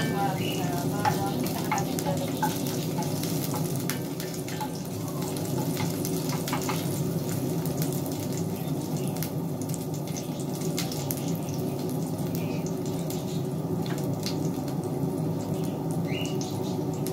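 Chopped garlic frying in a little canola oil in a stainless steel pan: a steady sizzle with scattered pops and clicks as a wooden spatula stirs it, over a steady low hum.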